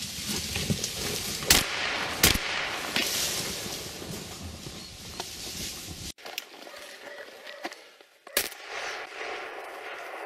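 Gunshots from a hunter's gun: two sharp shots less than a second apart about a second and a half in, and a third single shot around eight seconds in.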